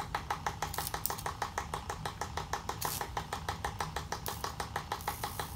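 Rapid, even clicking, about eight to nine clicks a second, over a low steady hum, from the high-voltage apparatus pulsing a Lenard ray tube.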